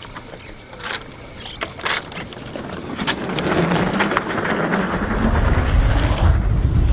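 BMX bike rolling down a bristle-matted water ramp: a few light clicks, then a rush of tyre and wind noise that builds from about three seconds in into a strong low rumble as the bike picks up speed.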